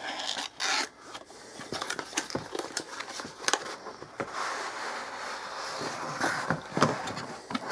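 Cardboard packaging being handled: a tablet's inner cardboard tray sliding out of its retail box, with rustling paper and cardboard and scattered clicks and taps.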